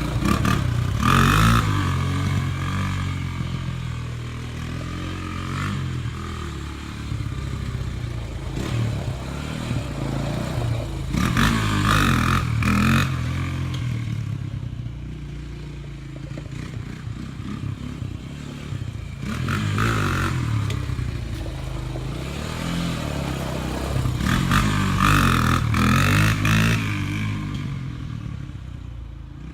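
Honda TRX250 Fourtrax ATV's single-cylinder four-stroke engine revving hard in repeated surges, about four times, dropping back between them.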